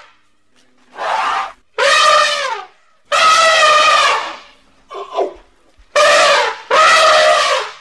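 Elephant trumpeting: a run of about six loud, brassy blasts, each lasting under a second and a half with short gaps between, plus one shorter, fainter call near the middle.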